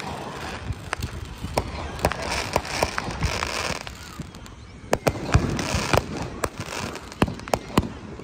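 Consumer fireworks going off: many sharp bangs and pops from bursting aerial shells and roman candles, with stretches of crackling hiss between them.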